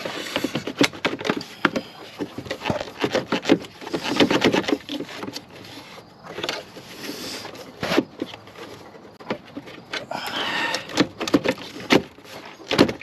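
Hands working on car parts: an irregular run of clicks, knocks and rustling as parts are handled and pushed around.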